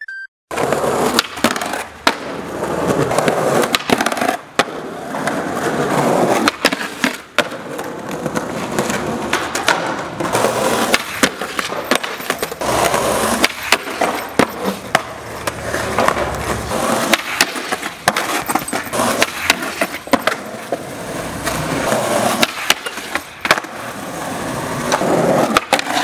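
Skateboards rolling on rough pavement, with many sharp clacks of tail pops and landings. Trucks grind and slide along the edge of a concrete ledge on the stairs.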